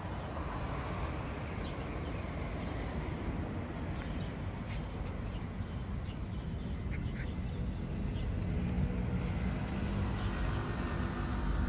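Outdoor street ambience: a steady low rumble of road traffic, with a few short faint calls over it.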